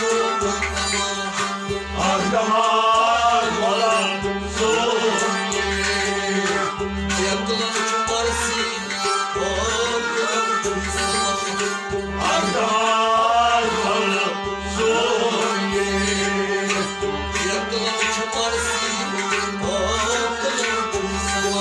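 Live folk song: a man singing to a long-necked stringed instrument, over a steady held note and a drum beating about two strokes a second.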